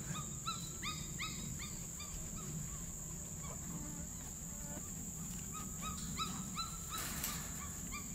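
Cane Corso puppies whining and crying in a string of short, high whines, two or three a second, each rising then falling. The owner takes them to be crying for food. A brief rustling noise comes about seven seconds in.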